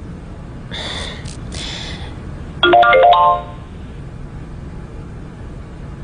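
Mobile phone ringtone: a quick run of electronic notes lasting under a second, about two and a half seconds in, after a soft rustling noise.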